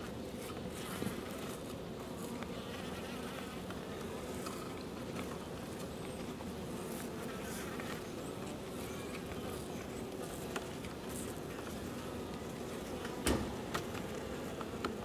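Honeybee colony buzzing steadily in an opened winter hive. A few faint clicks sound throughout, and a single sharp knock comes about 13 seconds in.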